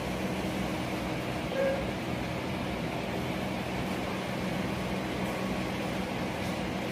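Steady machine hum with an even hiss, and a short faint squeak about one and a half seconds in.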